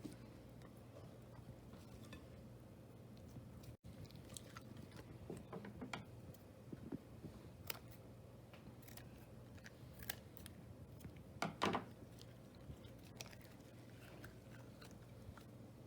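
A squish ball and its gooey slime filling being handled by hand: scattered soft clicks and small sticky crackles, with a louder cluster of clicks about eleven and a half seconds in, over a low steady hum.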